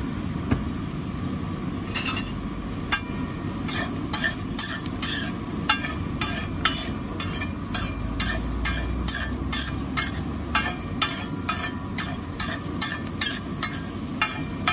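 Flat metal spatula striking and scraping a large flat griddle (tawa) about two to three times a second, starting about two seconds in, as a frying egg mixture is chopped and spread. Under it runs the steady sizzle of the egg frying on the hot griddle.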